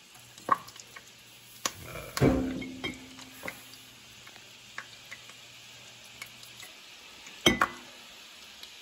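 Olive oil and butter sizzling faintly in a hot frying pan, with scattered clicks and knocks of kitchen dishes and utensils. There is a louder knock about two seconds in and another near the end.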